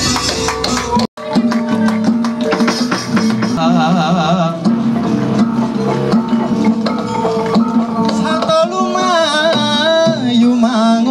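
Javanese gamelan playing: struck bronze gongs and metallophones ring under a wavering melody with vibrato that comes in about three seconds in. The sound cuts out for a moment about a second in.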